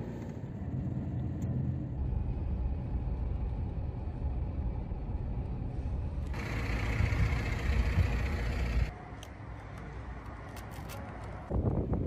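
Steady low rumble of a moving car's engine and tyres, heard from inside the cabin. About six seconds in, a louder rushing road and wind noise joins for a couple of seconds, then cuts off suddenly.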